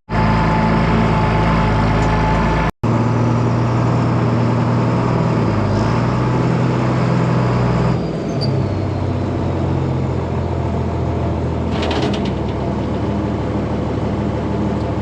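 John Deere 4430's six-cylinder diesel engine running steadily under load while pulling a mixer wagon. Its note drops to a lower speed about eight seconds in. A short hiss comes near the end.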